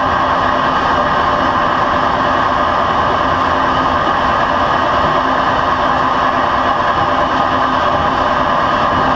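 Electric locomotive's DC traction motor, gearing and wheelset running at about 129 km/h, heard from beside the bogie: a loud, steady rolling roar of steel wheels on rail with a steady hum beneath. The traction current has fallen nearly to zero, so the motor is running almost unloaded.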